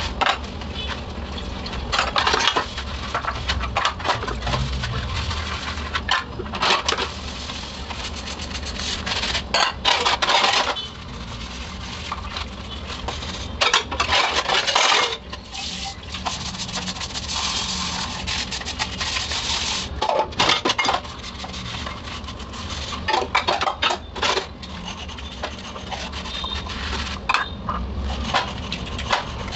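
Stainless-steel dishes and vessels being scrubbed by hand with a soapy scrubber in a crowded sink: scouring rubs and repeated metallic clinks and clatters as the utensils knock together, over the steady splash of a running tap.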